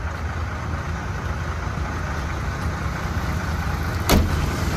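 Vehicle engines idling in a traffic queue, a steady low drone, with one sharp knock about four seconds in.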